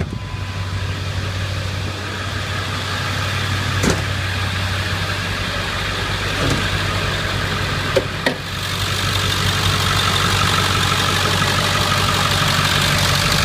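Ford Excursion engine idling steadily, with the A/C switched on but the compressor clutch not engaging. The idle gets louder about two-thirds of the way through, and there are two sharp clunks about four and eight seconds in.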